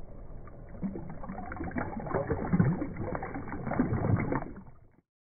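Water splashing and sloshing as a prototype pump pushes a dome and then a column of water up out of a tub and it falls back in. The splashing grows about a second in, peaks twice and fades out near the end.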